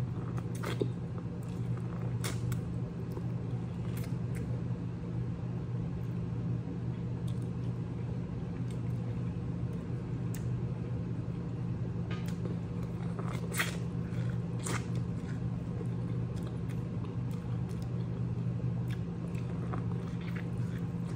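Close-up biting and chewing of a coated corn on the cob, with sharp mouth clicks here and there over a steady low hum.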